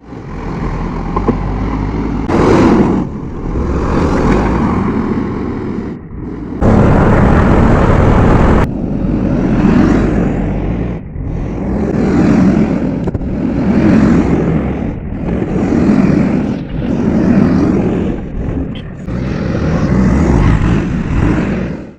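JCB 3DX backhoe loader's diesel engine running hard under load, its level swelling and falling every couple of seconds, with a few abrupt jumps where the sound cuts between shots.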